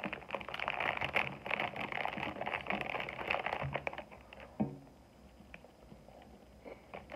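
Thin plastic food bag crinkling and crackling as it is pulled open by hand, for about four seconds. After that it goes quieter, with a brief hum from the eater and soft chewing of a cookie near the end.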